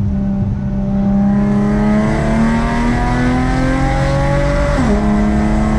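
Infiniti G37 sedan's 3.7-litre V6 heard from inside the cabin through a SOHO 3-inch single-exit exhaust with resonated test pipes, pulling under light acceleration with its note slowly rising. The note drops quickly near the end, as at an upshift, then holds steady.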